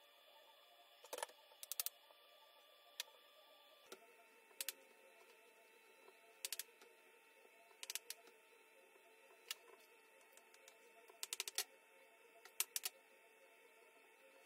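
Scattered sharp taps of a knife on a cutting board, some single and some in quick runs of two to four, as soft potato dough is cut into gnocchi pieces; a faint room hum underneath.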